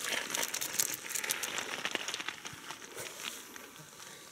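Water splashing and dripping from a hand flicked in shallow river water, then many small crackles and rustles of clothing and gravel as the line is handled, fading off.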